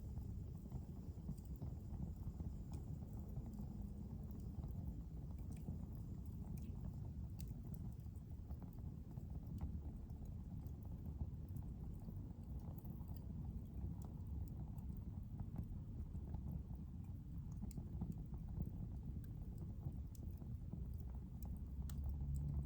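Wood fire burning in a fireplace: a steady low rumble of flames with scattered crackles and pops.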